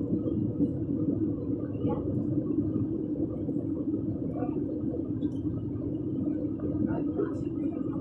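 Steady low drone of an Airbus A320 airliner cabin, with a faint murmur of voices.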